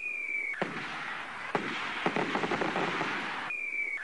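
Fireworks sound effect: a rocket whistling with a falling pitch, then a bang and a long dense crackle with several sharp pops. A second falling whistle near the end leads into another bang.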